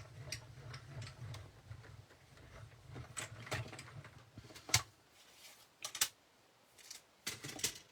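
A die-cutting machine rolls a palm-tree die and cutting plates through with a low rumble for about five seconds. Then come several sharp clicks and knocks as the plates are handled, the loudest just after the rumble stops.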